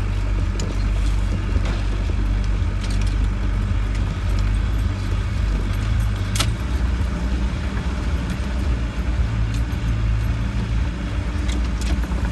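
Land Rover 90 driving slowly off-road, heard from inside the cab: a steady low engine drone with a few sharp clicks and rattles from the body and loose items, the loudest click about six seconds in.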